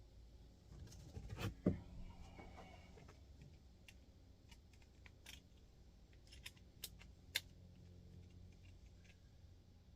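Light metallic clicks and knocks from hands handling small metal tools or parts: a quick cluster of knocks about a second in, then a few sharp single clicks spaced out over the next several seconds, over a faint steady low hum.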